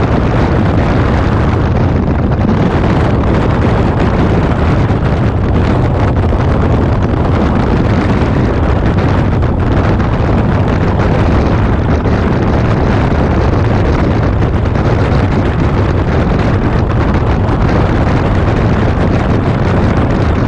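Steady, loud wind noise buffeting the microphone of a camera on a motorcycle riding at road speed, with the bike's running and road noise mixed in underneath.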